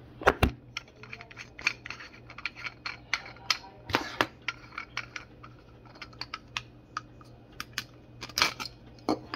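Irregular plastic clicks and clacks as the soap dispenser's plastic threaded nut and a plastic washer are worked off its shank, with a few louder knocks near the start, about four seconds in and near the end.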